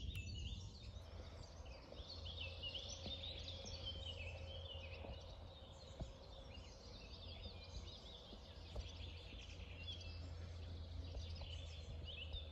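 Songbirds singing in the surrounding trees: a busy chorus of quick high chirps and trills, over a steady low background rumble.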